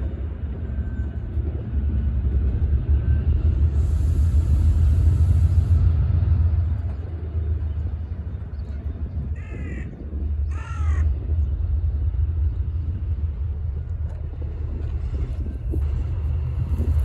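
Steady low rumble of a DRS Class 68 diesel locomotive working in the yard. A brief high hiss comes around four seconds in, and a crow caws twice about ten seconds in.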